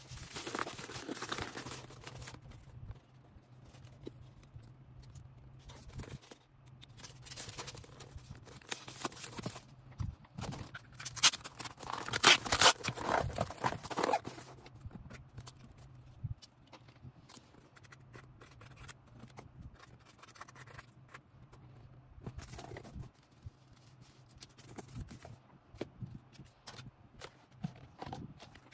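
Hands packing an order: packaging crinkling, rustling and scraping in irregular bursts, loudest about eleven to fourteen seconds in. A low steady hum runs underneath and stops about sixteen seconds in.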